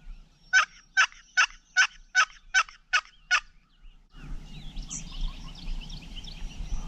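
A turkey call sounding a series of eight sharp, evenly spaced yelps, about two and a half a second, calling to a gobbler. From about four seconds in, footsteps on a gravel road, with small birds singing.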